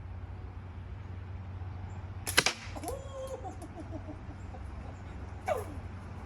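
Slingshot shot with a 9mm steel ball: a sharp snap about two and a half seconds in, the loudest sound, followed by fainter ticks. Another sharp sound with a falling pitch comes near the end, over a steady low hum.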